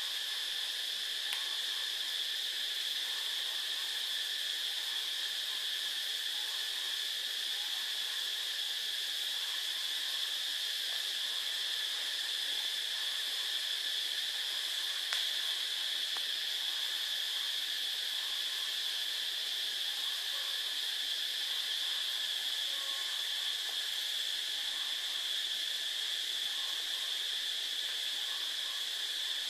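Steady high-pitched hiss with a whining edge.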